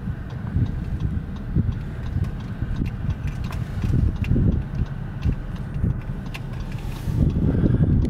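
Low rumble of an idling car with scattered light clicks of hooves as a band of Salt River wild horses walks across dry desert ground.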